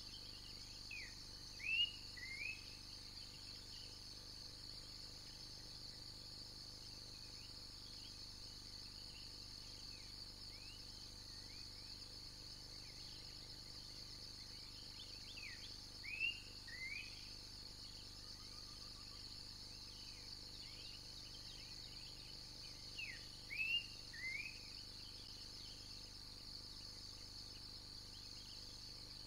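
Steady high-pitched insect chorus from the forest. Three times, near the start, around the middle and later on, a bird gives short sweeping whistled notes in quick clusters of two or three.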